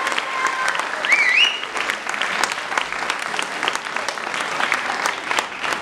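Audience clapping steadily, with a short high rising cheer from the crowd about a second in.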